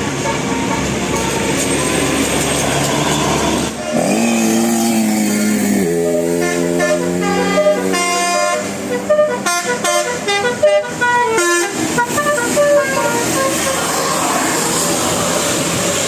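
A bus's Basuri telolet horn, a multi-trumpet musical air horn. About four seconds in it holds one long note, then plays a quick tune of stepped notes for about six seconds.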